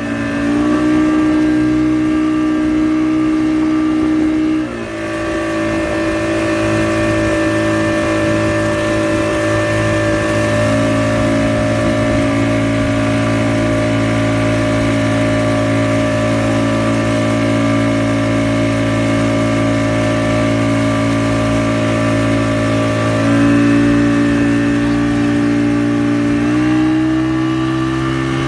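The engine of a watercraft towing a banana boat, running at steady high speed with water rushing in its wake. The engine note drops about five seconds in and rises again twice near the end.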